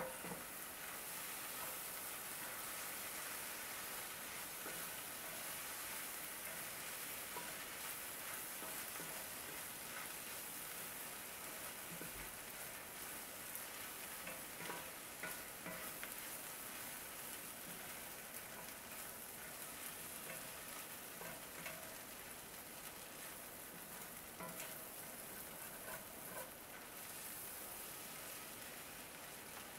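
Char koay teow (flat rice noodles, prawns and chives) sizzling steadily as it is stir-fried in a Lodge cast iron skillet, with a wooden spatula scraping and tossing through the noodles in scattered clicks.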